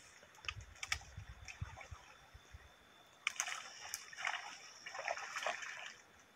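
Water splashing and sloshing as two people wade through a muddy pond dragging a seine net, in repeated surges that grow busier from about halfway in.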